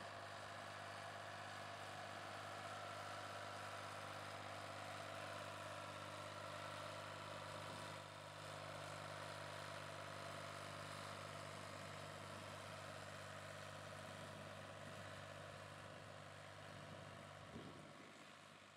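Ford farm tractor's engine running steadily while pulling a field sprayer, heard faintly, growing fainter near the end.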